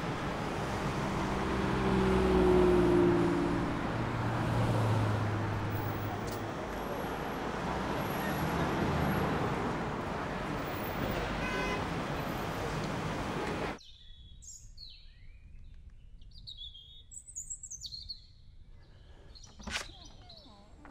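City street traffic: a steady rush of passing vehicles, with a vehicle's engine tones standing out over the first few seconds. About 14 seconds in it cuts off abruptly to a much quieter background in which small birds chirp.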